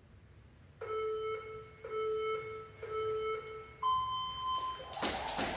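Workout interval timer beeping a countdown: three beeps a second apart, then a single higher-pitched beep that signals the start. About five seconds in, a jump rope starts slapping the floor in a quick, even rhythm.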